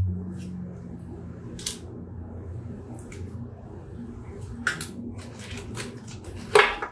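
Knife working a sticky oatmeal-and-applesauce filling into hollow dog bones over a plastic mixing bowl: scattered scrapes, clicks and squishes, with the sharpest clatter near the end.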